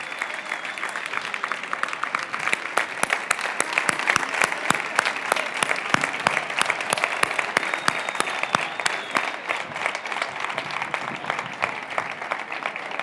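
A large crowd applauding, the clapping growing denser a couple of seconds in.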